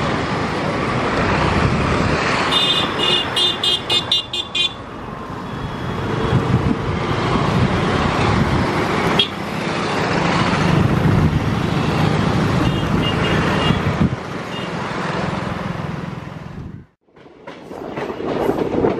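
Steady road traffic noise with a vehicle horn beeping in a rapid series of short high beeps about three seconds in, and a fainter short series later. Near the end the sound cuts out for a moment and gives way to the rumble of a moving train.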